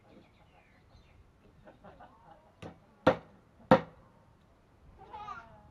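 Meat cleaver chopping through grilled bird on a round wooden chopping block: three sharp chops in quick succession a little past halfway, the last two loudest.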